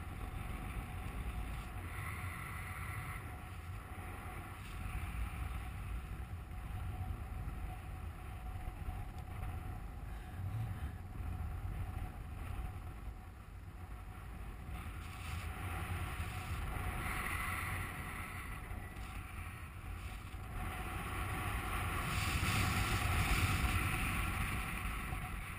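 Airflow of paraglider flight rushing over the camera's microphone: a steady rumbling hiss that swells louder near the end.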